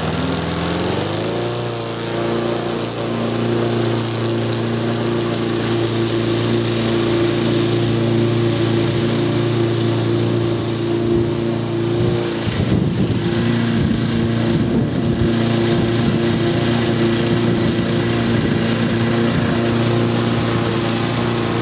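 6 hp Briggs & Stratton push-mower engine running at high speed while mowing, its governor adjusted for higher rpm. The note climbs to speed about a second in, holds steady, and wavers briefly about halfway through before settling again.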